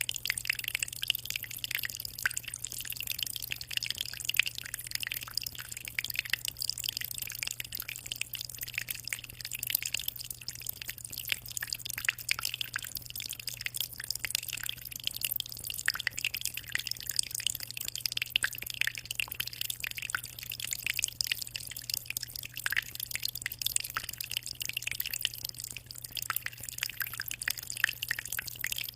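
Water in a 60-litre shrimp aquarium trickling and splashing: a dense, steady patter of tiny splashes and drips, with a low steady hum underneath.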